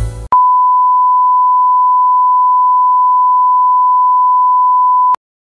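Television test-card reference tone: a single steady 1 kHz sine beep held for nearly five seconds, starting just after a brief tail of music and cutting off abruptly.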